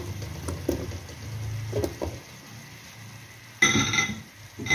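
Raw potato cubes being tipped into a pan of simmering masala, landing with a few soft knocks over a light sizzle and a steady low hum. About three and a half seconds in, a loud ringing clink.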